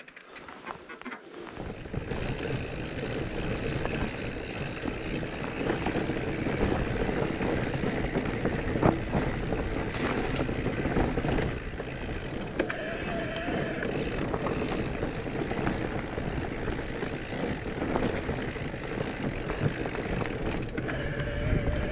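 Mountain bike ridden along a rough trail: a steady rush of wind on the microphone and tyre noise that builds about two seconds in, with a few sharp knocks.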